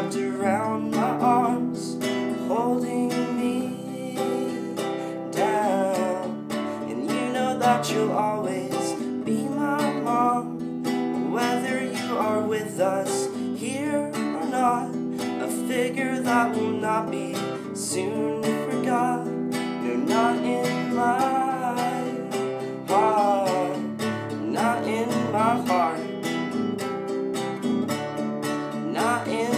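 A man singing a slow song, accompanying himself on a strummed acoustic guitar.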